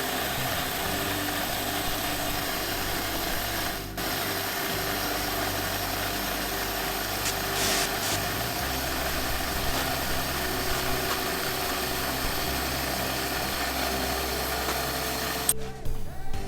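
Brake lathe spinning a brake rotor while its two cutting bits skim both faces, a steady motor tone under an even scraping hiss as rust and unevenness are cut off to true the rotor. It breaks off briefly about four seconds in, and music takes over near the end.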